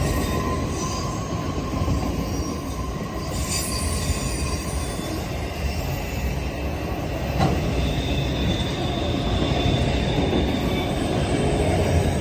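Freight train cars rolling past: a steady rumble of steel wheels on the rails, with faint, thin wheel squeals coming and going.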